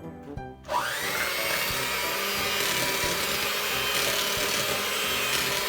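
Electric mixer switching on and running at a steady speed while creaming butter and sugar, its motor whine climbing quickly as it spins up less than a second in.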